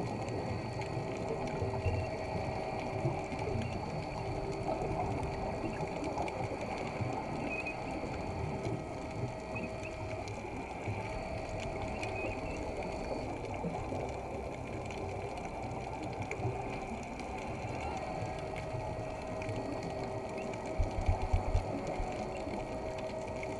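Underwater sound: a steady mechanical whirring with several held tones that drop out and come back, over a hiss of air bubbles from scuba divers' exhaled breath. Near the end comes a short burst of low bubbling.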